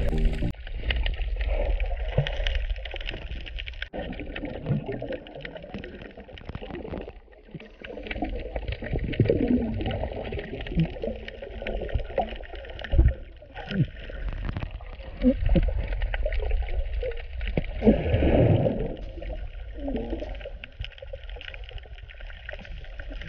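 Muffled underwater sound recorded below the surface: a steady low rumble of water with irregular bubbling gurgles coming and going.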